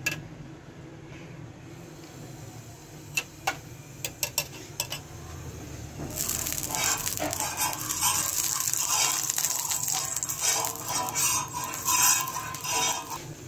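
A few light knocks of kitchen utensils, then sizzling on a hot iron tawa (flat griddle) that starts suddenly about six seconds in and keeps going.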